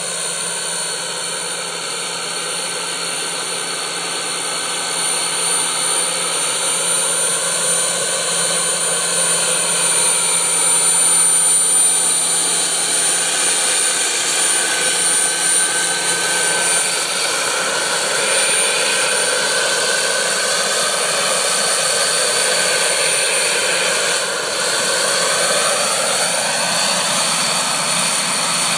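Jakadofsky model gas turbine powering a radio-controlled scale Westland Scout helicopter in flight: a steady high turbine whine with rotor noise. The pitch glides up and down as the model passes and turns, and it is loudest as it flies close by partway through.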